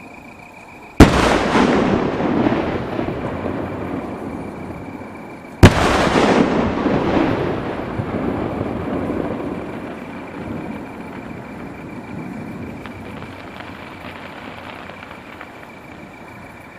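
Two large 15-go (1.5-shaku) underwater fireworks shells bursting on the lake, one about a second in and the next about four and a half seconds later. Each is a sudden boom followed by a long rumble that fades over several seconds.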